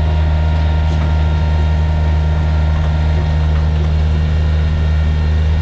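John Deere 1445's diesel engine running steadily at working speed while driving the front snowblower attachment through packed snow, a constant deep drone with steady overtones.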